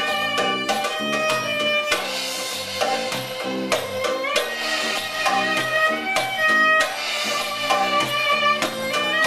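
Live Middle Eastern music from a small band: a violin playing the melody over steady hand-drum beats and a repeating low plucked line.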